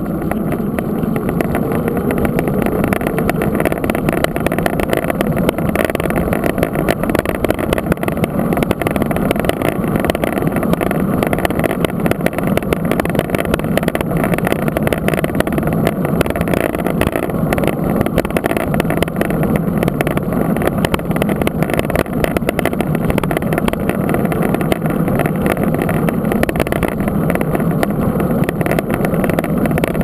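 Steady rush of wind on the camera's microphone, mixed with the hum of a knobby mountain-bike tyre rolling on asphalt.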